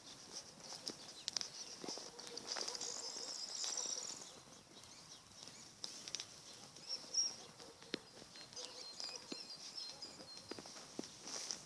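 Birds singing, high chirping phrases that are strongest a few seconds in, with scattered short clicks and rustles.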